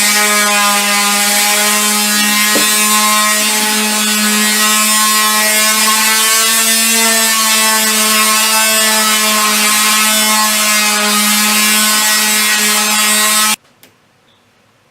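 Power tool motor running loud at a steady pitch, then cutting off suddenly near the end.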